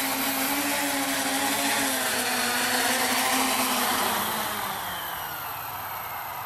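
A quadcopter's four electric motors and propellers whirring as it lands on grass. From about halfway through, the whine falls in pitch and gets quieter as the motors spin down after touchdown.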